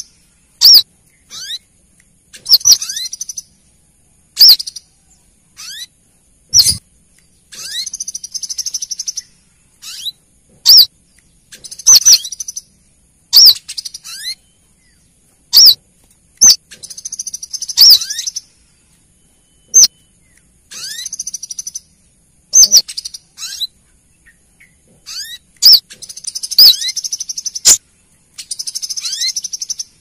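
Female brown-throated sunbird calls, used as a lure to draw in males: sharp, loud single notes, some falling steeply in pitch, alternate with rapid twittering chatters of about a second each, over and over.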